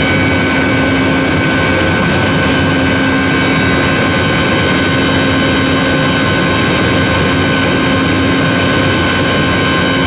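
Electric motor and close-coupled centrifugal pump running steadily: a loud, even machine drone with a whine of several fixed pitches over it.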